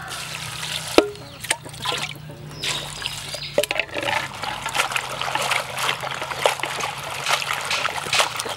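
Water poured from a plastic scoop trickling over cabbage leaves and greens in a plastic basin. About four seconds in it gives way to hands rubbing and swishing the wet leaves, with many quick splashes and crackles.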